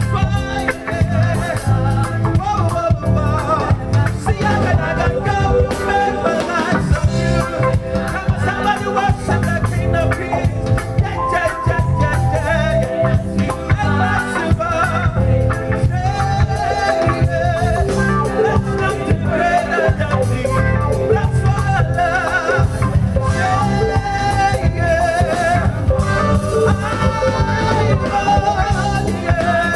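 Live gospel band playing an upbeat song: drum kit, bass guitar, electric lead guitar and keyboards, with voices singing over a strong, steady beat.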